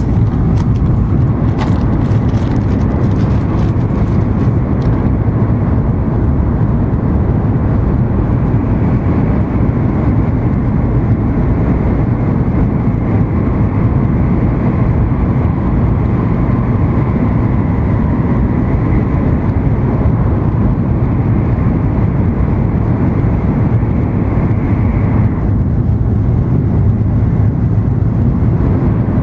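Steady interior running noise of an N700 series Shinkansen high-speed train in motion: a low rumble, with a few light clicks in the first seconds and a higher hiss that cuts off suddenly near the end.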